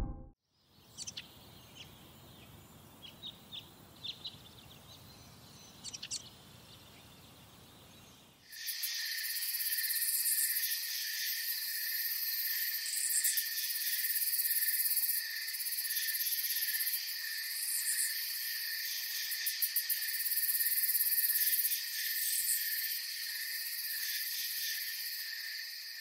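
Faint background with a few short chirps. About eight seconds in, a loud, dense chorus of insects starts abruptly: a steady high-pitched buzz with a faster pulsing shimmer above it.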